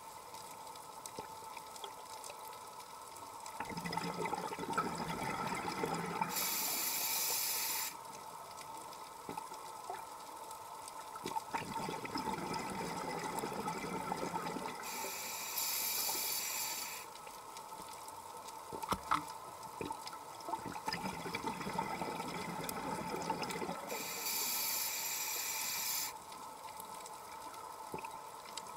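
Scuba diver breathing through a regulator, heard underwater: three breaths about nine seconds apart. Each is a rush of bubbling followed by a hiss that cuts off sharply.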